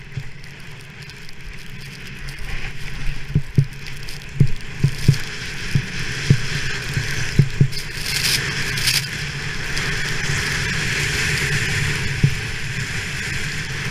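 Skis hissing as they slide over snow, with wind buffeting the action camera and irregular low knocks as the skis ride over bumps. The hiss grows louder about eight seconds in.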